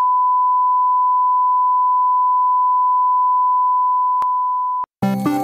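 A steady 1 kHz test-pattern reference tone, a single pure beep held without change, easing slightly and then cutting off suddenly near the end, after which music starts.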